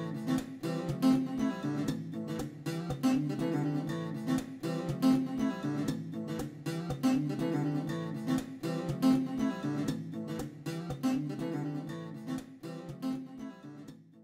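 Guitar music: strummed chords in a steady rhythm, fading out near the end.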